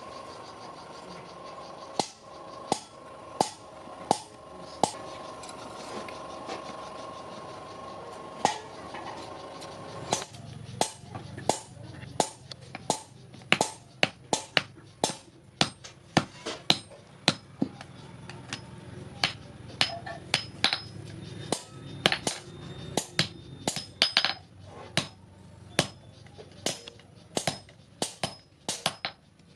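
Hand hammer striking steel on an anvil in forging: single blows about 0.7 s apart at first, then from about ten seconds in a quicker, uneven run of strikes, some leaving a short ringing note.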